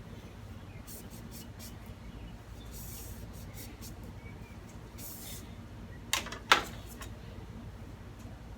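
Handling noises over a steady low hum: faint clicks and two brief swishes, then two sharp clicks close together about six seconds in.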